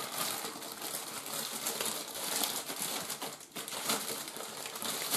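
Thin clear plastic bag crinkling and rustling without a break as a laptop AC adapter's power cord is handled and pulled out of it.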